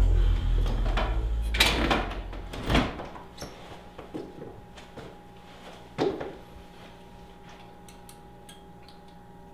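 A house door opening and being pushed shut, with knocks early on and a single thump about six seconds in. Background music ends about three seconds in, leaving quiet room tone.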